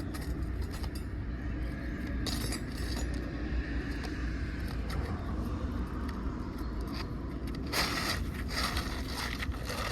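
Metal tools scraping and clinking against asphalt shingles as roofing nails are worked loose to free a shingle, in short bursts about two seconds in and a denser run in the last two seconds, over a steady low background rumble.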